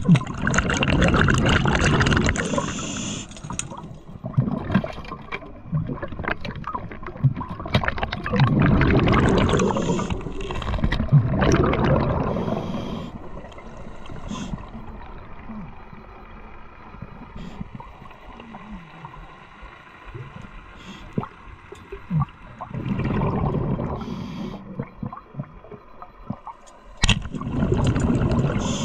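Scuba diver breathing through a regulator underwater: exhaled air bubbles out in bursts one to three seconds long, about five times, with quieter stretches between breaths.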